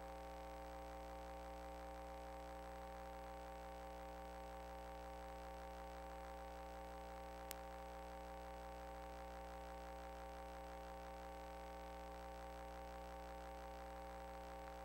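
Low, steady electrical hum and buzz made of several fixed tones, the kind of noise a recording system's audio line picks up, with one sharp click about halfway through.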